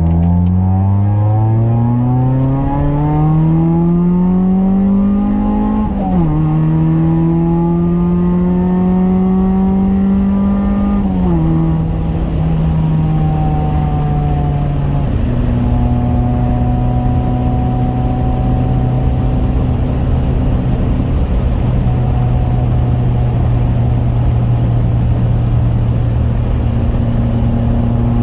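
Honda's swapped F23A four-cylinder engine pulling hard through the gears: engine pitch climbs, drops at a gear change about six seconds in, climbs again, drops at another change near eleven seconds, then settles to steady cruising.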